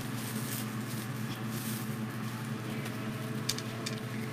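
Soft rustling and crinkling of foil deco mesh being folded and handled, with two light crinkles about three and a half seconds in, over a steady low hum.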